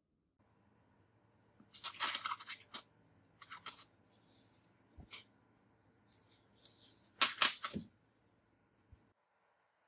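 Small parts of a pair of gold metal-framed sunglasses (lenses, frame, temple arms) being handled and set down on a table: scattered light clicks and clatters in several short flurries, the loudest late on.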